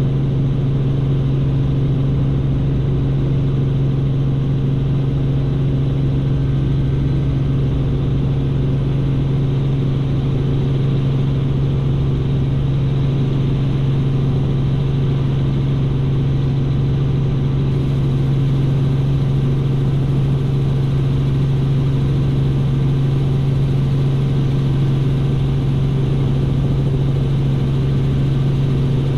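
Robinson R44 helicopter in flight: the steady, unchanging drone of its engine and rotors, dominated by a strong low hum.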